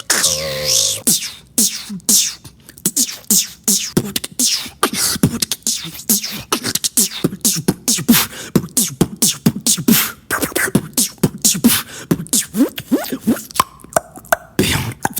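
A beatboxer making sound effects with his mouth: a fast, dense run of sharp clicks mixed with many short, falling pitched sweeps.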